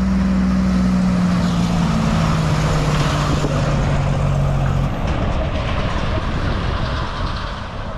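A livestock road train, a diesel prime mover hauling three stock-crate trailers, passing close by. The engine's drone lowers in pitch as the truck goes by and drops away about five seconds in. Tyre noise and rattling from the passing trailers follow and begin to fade near the end.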